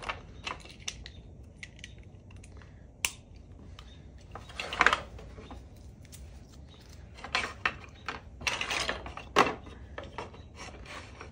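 Plastic Lego bricks clicking and clattering as they are handled and fitted onto a metal wire rail: scattered light clicks, with louder scraping clatters about five and about nine seconds in.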